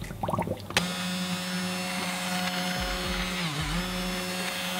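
Immersion blender switched on under a second in, its motor running with a steady whine as it purées thick pea soup in a pot. A little past the middle the pitch dips briefly and then recovers.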